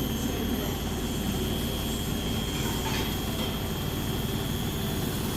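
Beko WS832425s washing machine spinning at speed: a steady rumbling whir with a faint, steady high whine over it.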